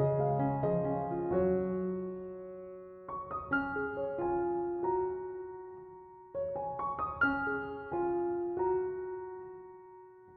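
Background piano music: gentle phrases of struck notes that ring and fade, with new phrases starting about three and six seconds in.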